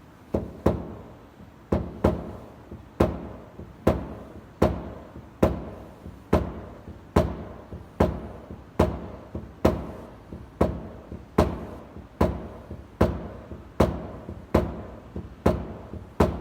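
PDR hammer tapping a knockdown tool against a car door panel: about twenty evenly spaced taps, a little under one a second, each with a short ring and often a light bounce tap after it. The taps knock high spots, where the metal was pushed a little too far from behind, back down flush.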